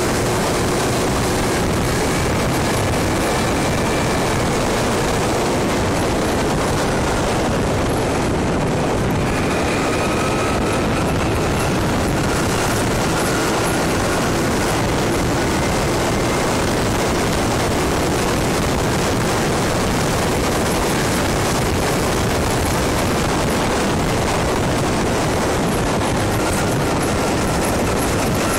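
Steady rush of wind over the microphone of a moving scooter, with the scooter's engine running underneath and a few faint tones that drift slightly in pitch.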